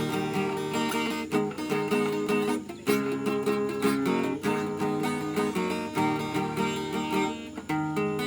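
Instrumental music led by acoustic guitar: plucked and strummed chords, without singing.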